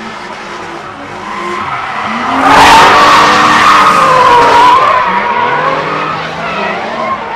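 Two drift cars, a Nissan 370Z leading, sliding in tandem: engines revving up and down while the rear tyres squeal and screech. The tyre squeal swells to its loudest from about two and a half seconds in until about five seconds, then eases.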